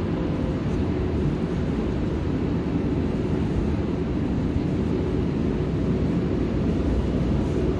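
Inclined funicular car climbing its track: a steady low rumble with a faint hum.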